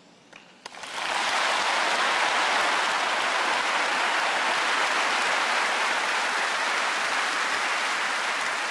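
Audience applause starting about a second in and carrying on steadily, easing slightly near the end.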